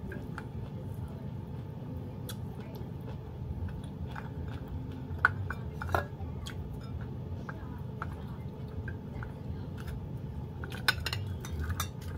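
A person eating with the hands: soft chewing and the light clink and knock of plates and a bowl on a stone counter. A few sharper clicks come about five and six seconds in, and a short run of them near the end, over a steady low hum.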